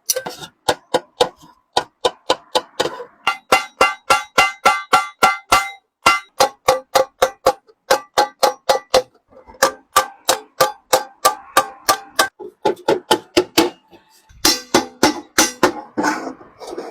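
A hammer striking a metal water kettle, likely seating its new bottom: sharp ringing blows, several a second, in runs with short pauses.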